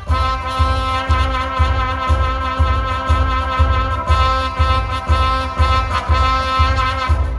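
Music from an electronic keyboard with a brass-like sound, playing held notes over a steady low beat of about two thumps a second.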